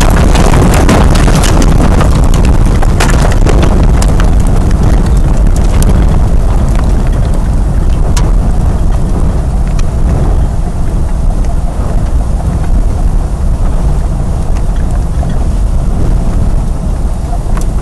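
Tornado winds hitting a house: a loud, continuous rumbling rush of wind buffeting the microphone. Many sharp cracks and clatters of debris strike through the first several seconds, and the din eases somewhat toward the end.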